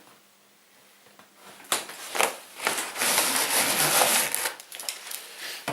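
Packaging for an air compressor being handled: three sharp knocks, then a burst of scraping and rustling.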